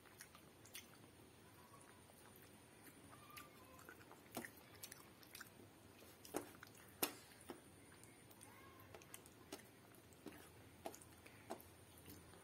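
A person eating soft khichdi and chicken curry by hand: quiet chewing with scattered wet mouth clicks. The two loudest clicks come a little after six and seven seconds in.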